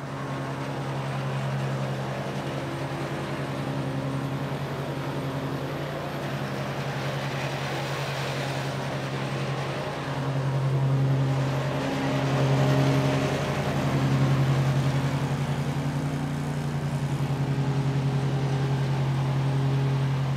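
Dixie Chopper Blackhawk 48-inch zero-turn mower's engine running steadily as it drives, a low even hum that grows louder for a few seconds about halfway through as it passes close by.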